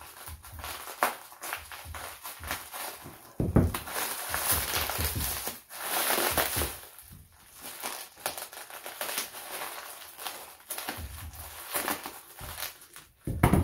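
Plastic bubble wrap and shrink wrap crinkling and crackling as hands pull and peel it, with a knock about three and a half seconds in.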